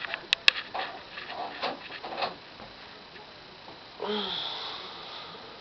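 A person's breathy vocal sound about four seconds in: a low, falling voiced breath with hiss that fades over about a second and a half, after a few faint clicks.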